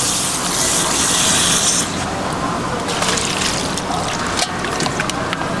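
Tap water running over seafood being rinsed for sashimi. It stops about two seconds in, leaving light clicks and knocks of handling.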